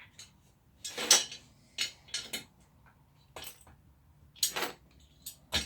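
Hard plastic clunks and clicks as chair caster wheels are handled and pushed into the chair's wheel base: a handful of separate knocks, the loudest about a second in.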